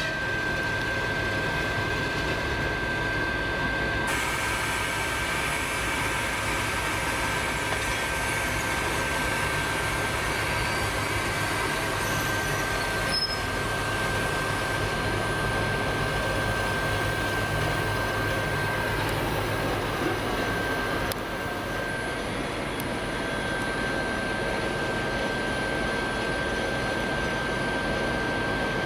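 ES1P Lastochka electric train giving a steady rail noise with a constant high-pitched whine.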